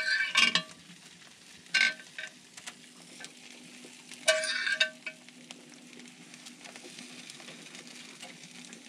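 Tuna sosaties sizzling on a wire grid over hot braai coals as marinade is brushed on, with three short hissing flare-ups over a faint steady sizzle.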